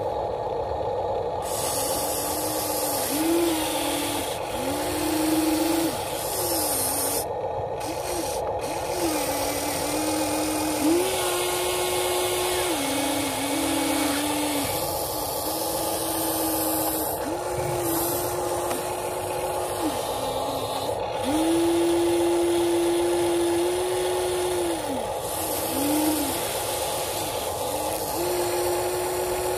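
Electric motors of a Huina RC excavator whining as the boom, arm and bucket move while it digs soil. The whine starts and stops every second or two and steps up and down in pitch, over a steady hum and hiss.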